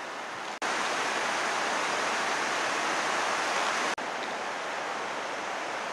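Steady rushing outdoor noise with no distinct events, louder in the middle stretch and broken twice by brief dropouts at cuts between shots.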